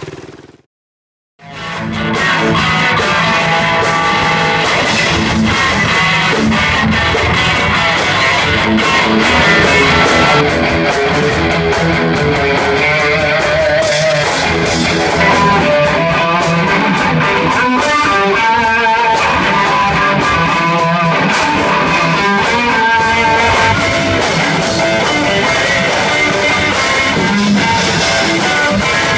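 A small rock band playing: electric guitars over a drum kit. It starts suddenly after about a second of silence.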